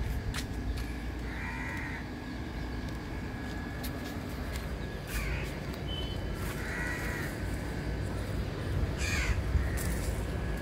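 A crow cawing: two short harsh caws about five seconds apart, with a couple of brief falling bird calls between them.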